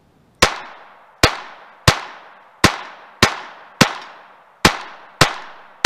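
Glock 44 .22 LR semi-automatic pistol firing eight shots in steady succession, a little under a second apart, each crack followed by a short echo. Every round cycles the action without a stoppage.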